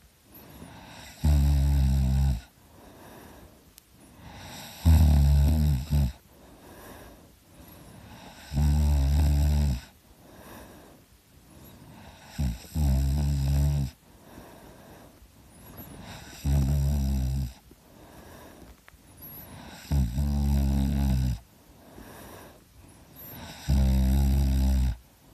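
A person snoring heavily in deep sleep: seven loud, low snores at a steady pace of about one every four seconds, each lasting about a second.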